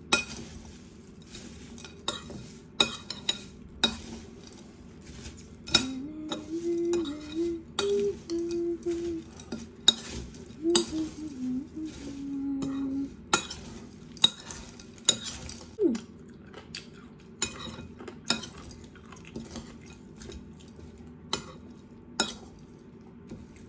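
A spoon clinking and scraping against a bowl at an irregular pace as chatpate (puffed rice with chopped vegetables, chili, lemon and oil) is stirred and mixed.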